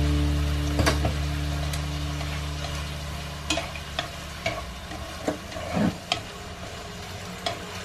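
Baby octopus, onion and chili sauce sizzling as they are stir-fried in a black iron wok, with a scatter of sharp clicks from the chopsticks knocking against the pan as they toss the food.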